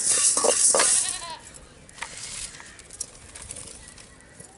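Metal ladle scraping and stirring coriander seeds dry-roasting in an aluminium kadai over a wood fire, stopping about a second and a half in. A brief wavering cry sounds near one second, and the rest is quiet with a few faint clicks.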